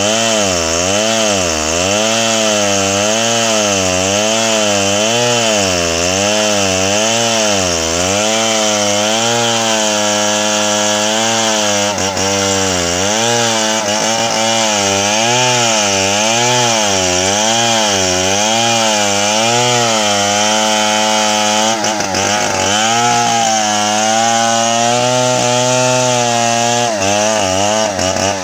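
Old two-stroke chainsaw at full throttle cutting into the trunk of a large tree, its engine pitch rising and falling about once a second as the bar works through the wood.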